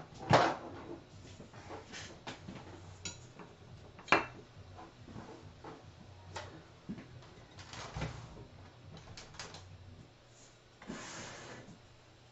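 Handling noises at a resin-pouring table: scattered sharp knocks and light clatter from a metal spreader and a resin-coated panel against the work surface. Two louder knocks come just after the start and about four seconds in. A brief sliding rustle near the end comes as the panel is turned.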